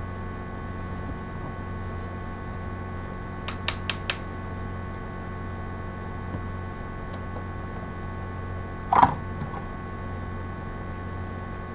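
Steady low electrical hum with a few handling noises: three short sharp clicks a few seconds in, and a brief louder scrape or knock about three-quarters of the way through, as the wooden hand-drill spindle, hearth board and a knife are handled on a tile floor.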